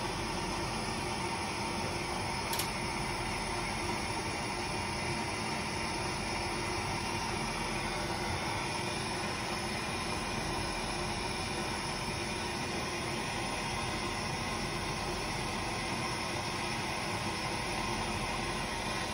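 Harbor Freight hand-held propane torch burning with a steady hiss, its flame heating aluminum pieces to brazing temperature.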